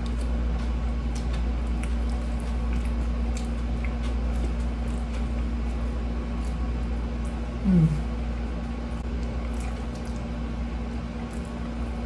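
Close-miked eating: soft chewing and small mouth and utensil clicks as a wooden spoon and fork work food on a plate, over a steady low hum. About two-thirds of the way through there is a brief vocal sound, falling in pitch.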